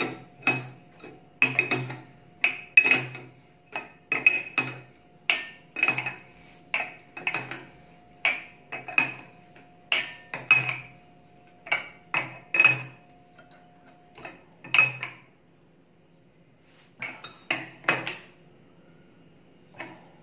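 Steel open-end wrench clinking against the chrome connecting nut of a wall-mounted kitchen mixer tap as the nut is tightened turn by turn: sharp metallic clinks, one or two a second, with a short pause about three-quarters of the way in. The nut is being tightened hard to stop the tap's connection leaking.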